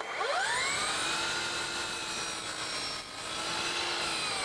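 DeWalt FlexVolt 120V brushless sliding miter saw's motor and blade spinning up right at the start, then running at full speed with a steady whine. The whine starts to wind down right at the end.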